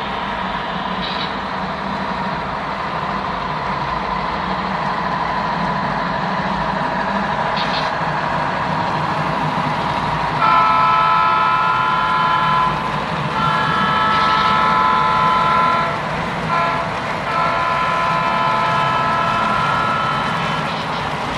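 Model diesel locomotives with onboard sound rumbling as they approach along the track. About halfway through, the multi-chime horn sounds two long blasts, a short one and a long one, the grade-crossing signal pattern.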